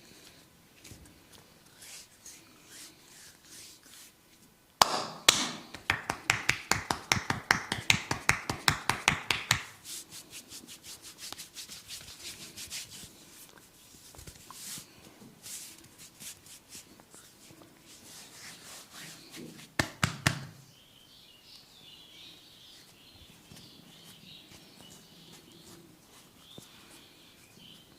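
Hand massage of the head with percussive tapping. Faint rubbing at first, then about five seconds in a sudden run of rapid, loud slapping taps lasting about five seconds. Lighter taps follow, then two sharp loud hits around twenty seconds in, and soft rubbing on hair and skin near the end.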